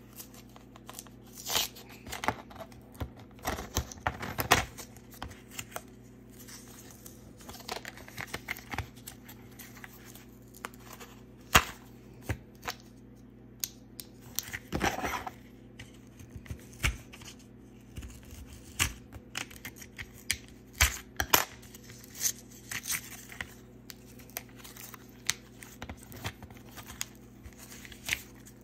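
A coin-cell battery blister pack being opened: paper backing tearing and plastic crinkling, with irregular sharp clicks, crackles and scrapes.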